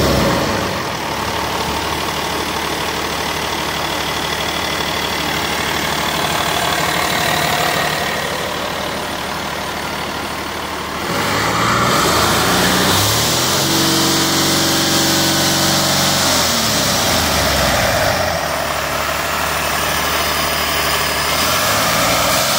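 A 2009 Hino J08E-TV 7.7-litre turbo diesel engine idles steadily. About halfway through it is revved up, held for a few seconds at higher speed, then drops back to idle.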